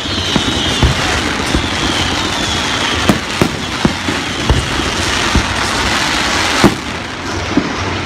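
Aerial fireworks display: a steady crackle of bursting shells with irregular sharp bangs, the loudest about two-thirds of the way through. Faint high falling whistles sound in the first few seconds.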